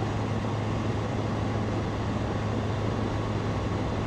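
Zenith STOL CH 701 in flight: its Rotax 912ULS four-cylinder engine and propeller give a steady low drone over a broad rush of air noise.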